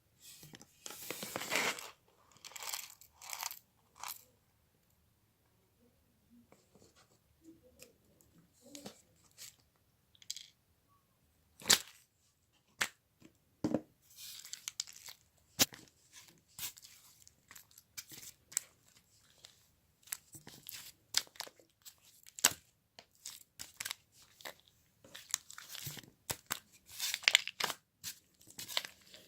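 Irregular rustling and tearing noises with sharp clicks and taps, like paper or plastic being handled up close, with a quiet stretch partway through.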